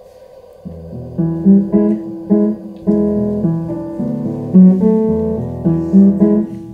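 Upright piano starting a song intro about a second in: repeated chords struck with a steady, accented beat.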